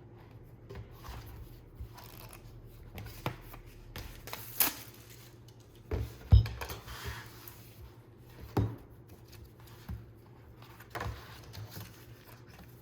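Hands handling an opened album, its photo cards and packaging: scattered clicks, taps and rustles, with a louder thump about six seconds in.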